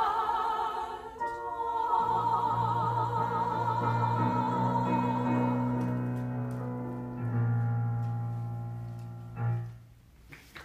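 Four women singing a show tune's final held note in harmony with wide vibrato, over sustained low piano chords that change about seven seconds in. A short final chord comes near the end, and then the music stops.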